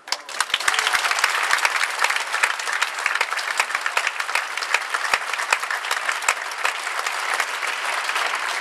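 Audience applauding: many hands clapping together, starting suddenly and keeping up steadily.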